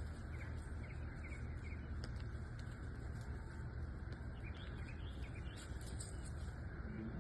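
Small birds chirping in short repeated notes, in two spells, over a steady low background rumble.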